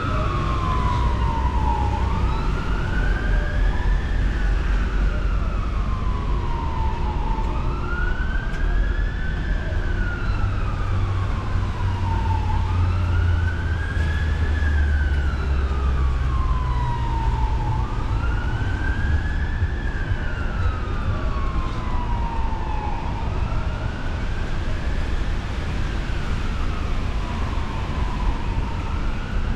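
An emergency vehicle's siren in a slow wail, its pitch rising over about two seconds and falling over about three, repeating roughly every five seconds. Beneath it is the steady rumble of road traffic, heaviest in the middle.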